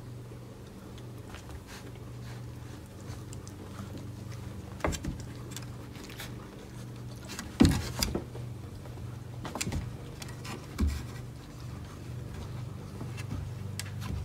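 Mastiff puppies moving about in a wooden whelping box: paws pattering and scrabbling on blankets and boards, with a few scattered knocks, the loudest about eight seconds in. A steady low hum runs underneath.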